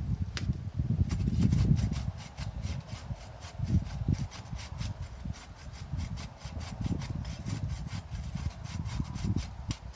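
Hand saw cutting through a dead tree limb, with steady, quick back-and-forth strokes.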